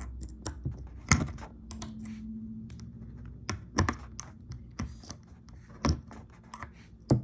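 Irregular clicks and taps of a flat screwdriver and metal tweezers working at a small nail in a cabinet's thin back panel, prying it up. There are a few louder knocks, about a second in and again near the end.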